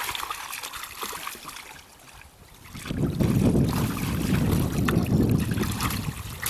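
Shallow muddy water splashing and trickling as people wade and grope for fish by hand. From about three seconds in, a low rumble of wind on the microphone.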